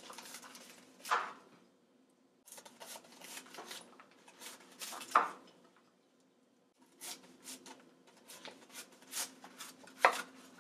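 Chef's knife sawing down through a raw cauliflower head on a wooden cutting board, in three bouts of short strokes. Each bout ends in a knock as the blade goes through and meets the board.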